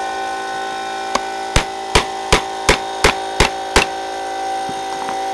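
Mallet striking a metal leather punch on a poly cutting board: one light tap, then seven sharp, evenly spaced blows, about three a second, as a hole or cut is driven through a leather collar strap.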